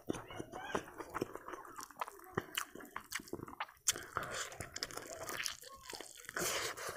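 A person eating duck biryani by hand: biting into a piece of duck and chewing with many short wet mouth clicks and smacks, close to a clip-on microphone.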